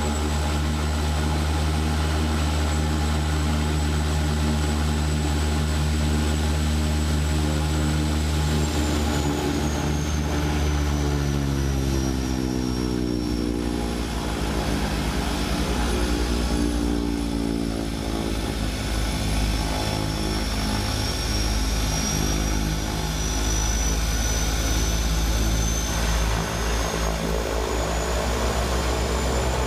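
Cockpit noise of a de Havilland Canada DHC-6 Twin Otter floatplane's twin PT6A turboprops and propellers: a steady drone with a high turbine whine. About ten seconds in, the pitch of the engines and whine falls as power comes back, then over the following seconds it climbs slowly again.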